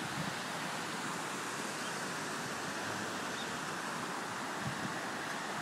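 Heavy rain and floodwater rushing along a flooded street: a steady, even hiss, with a few brief low rumbles near the end.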